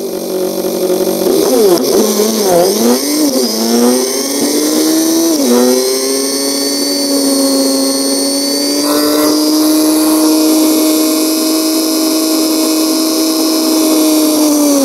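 1973 BMW R75/5's air-cooled flat-twin engine running under way with its sidecar, with wind rush over it. The pitch rises and falls over the first few seconds, dips about five seconds in, then holds nearly steady at cruising speed.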